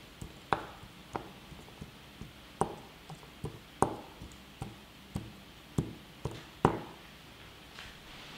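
Fingertip tapping the metal tops of a group of old NiMH battery cells one cell after another, a string of short, sharp taps at uneven spacing, roughly two a second.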